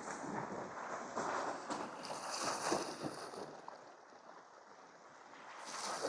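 Sea waves washing against shore rocks: a noisy wash that swells over the first few seconds, ebbs and swells again near the end.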